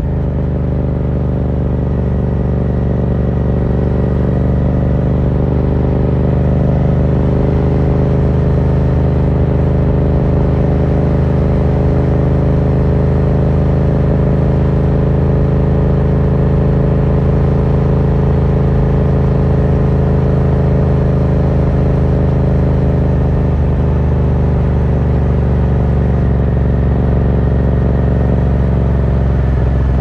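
2018 Yamaha MT-07's 689 cc parallel-twin engine running through an Akrapovic carbon Racing Line full exhaust with the dB killer removed, cruising at steady part throttle in third gear. The exhaust note holds nearly level and eases down a little near the end.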